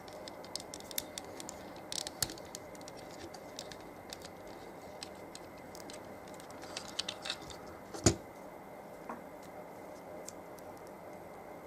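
Small clicks, taps and rattles of handling a toy figure and its plastic packaging, with one sharper knock about eight seconds in.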